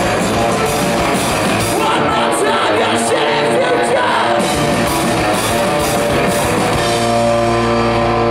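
Live rock band playing loud, with a singing voice over guitars and drums; about seven seconds in the music settles into a single held chord.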